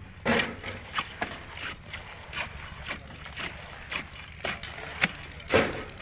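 Wet concrete being worked into a plinth beam's timber formwork: irregular scrapes and knocks, the loudest about five and a half seconds in, over a steady low machine rumble.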